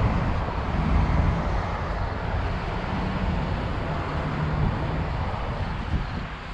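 Road traffic on a busy multi-lane highway: a steady wash of vehicle noise, with a low engine hum running through the middle.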